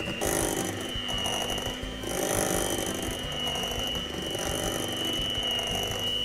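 Electric mixer running steadily as it beats cream cheese and whipped cream together, its motor giving a steady high whine.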